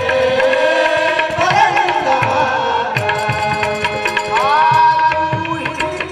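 Marathi devotional bhajan music: a harmonium holding notes over hand-drum strokes and khanjari frame-drum beats, with a singer's voice coming in about four seconds in.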